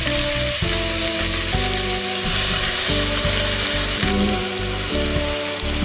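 Fish frying in hot oil in a stainless steel pot, a steady sizzle, while a spatula shifts the fish. Background music with held, changing notes plays underneath.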